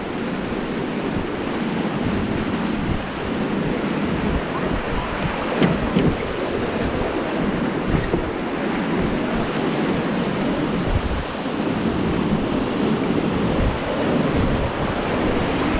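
Rushing whitewater of the Beas river around a raft, with wind buffeting the microphone. There are a few short thumps about halfway through.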